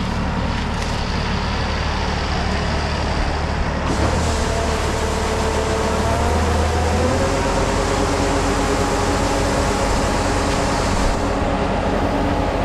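Engine of a rice-harvesting machine running steadily, its pitch shifting upward about four seconds in and again about seven seconds in.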